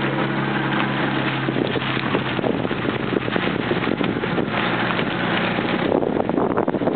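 Lancia Aurelia's V6 engine running at low speed. Its steady hum gives way, a second or two in, to heavy wind buffeting the microphone, which covers most of the engine.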